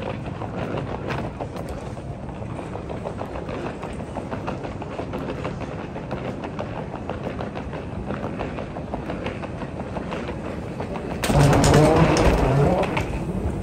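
Footsteps and the hum of an airport terminal concourse. About eleven seconds in, a louder rumble starts and lasts a couple of seconds as a moving walkway is ridden.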